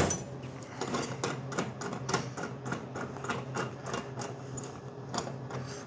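Royal RVV500 vending machine door thudding shut at the start, then a run of quick metallic clicks, about three or four a second, as the door's lock handle is turned to draw the door tight, over the machine's steady low hum.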